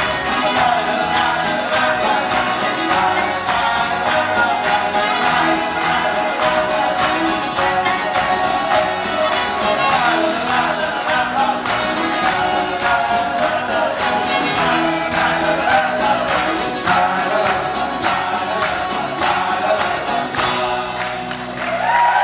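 A live folk-rock band with banjo, accordion, mandolin, fiddle, guitars, bass and drums plays an upbeat song at a steady beat, with several voices singing together.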